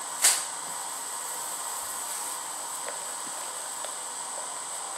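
Steady hiss of water heating toward the boil, with one sharp knock about a quarter of a second in.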